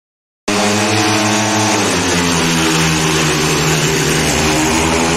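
Speedway bikes' single-cylinder methanol engines running hard as the bikes race down the track. The sound cuts in sharply about half a second in, and the engine note shifts lower about two seconds in.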